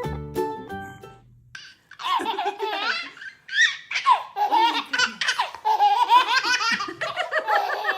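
A short bit of background music fades out, then about two seconds in a baby starts laughing in repeated bursts of giggles and belly laughs.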